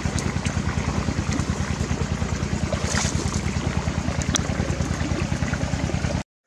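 A small engine running steadily, with an even low pulse of about ten beats a second.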